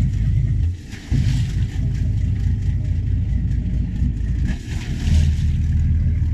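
The twin Cummins 330 diesel engines of a Bayliner 4087 motor yacht running just after a cold start, a steady low rumble. It dips briefly about a second in, then runs on evenly.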